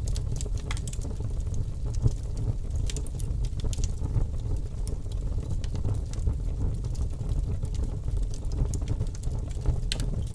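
Mixed ambience: a steady low rumble with many scattered sharp crackles and clicks.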